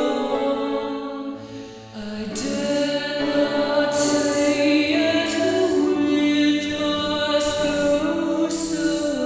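Choral music: voices singing slow, sustained chords that change every second or so, with a brief dip in loudness about two seconds in and soft hissing consonants here and there.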